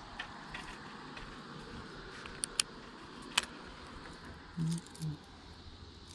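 A few sharp, light clicks and rattles of fishing tackle being handled (lure and hooks against the baitcasting rod and reel) over a steady outdoor hiss, with two brief low hums near the end.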